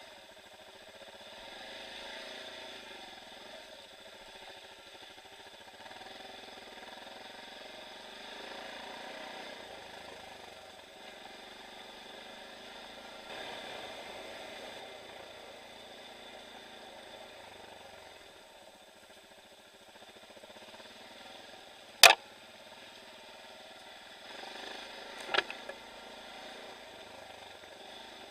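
Off-road motorcycle engine running at low to moderate revs over a rough dirt trail, the revs swelling and easing. Two sharp knocks about three seconds apart come late on, the first one loud.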